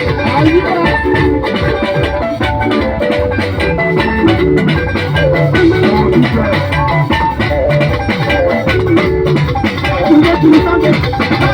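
Upbeat band music with a steady drum beat and busy, ringing melodic instrument lines, playing continuously.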